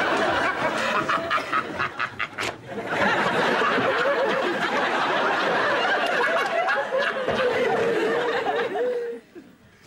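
Studio audience laughing, a dense wash of many voices that dies away shortly before the end.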